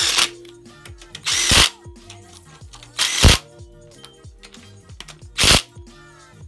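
Cordless impact gun run in four short bursts, driving in the bolts of an engine mount bracket on a bare engine block. Music plays underneath.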